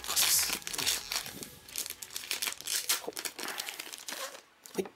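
A sealed silver foil blind bag being torn open by hand and crinkled: a run of crackling rips and rustles, loudest in the first second, dying away near the end.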